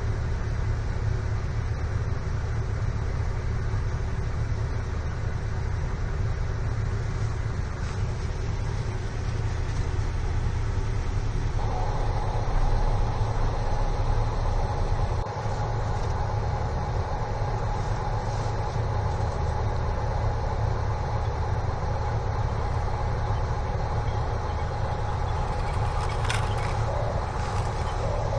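Small electric motor of a radio-controlled model vehicle whining steadily over a steady low rumble; the whine starts suddenly about twelve seconds in.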